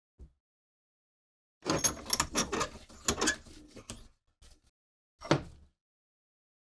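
Metal clicks and scrapes as a rusted Civil War bayonet is handled and clamped in a bench vise's soft jaws, in a quick cluster lasting about two seconds, followed by a single short clank about five seconds in.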